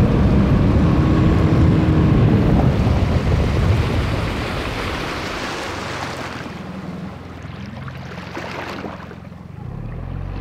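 Inflatable boat under way on a river: its motor running with water rushing past and wind buffeting the microphone, loudest for the first few seconds and then easing off.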